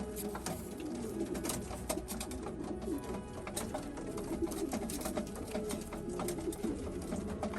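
Several racing pigeons cooing together, their calls overlapping continuously, with scattered sharp clicks and taps among them.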